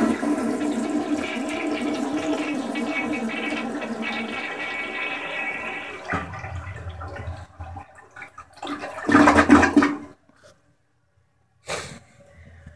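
1986 Crane Radcliffe toilet flushing: water rushing and swirling down the bowl for about six seconds, then fading. A brief, louder burst comes about nine seconds in and cuts off suddenly.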